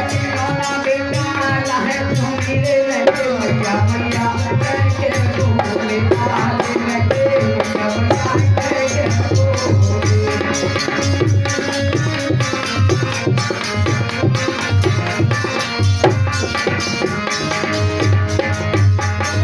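Music from an Indian devotional folk song with no words: a steady hand-drum beat with a shaker, under a sustained melody line.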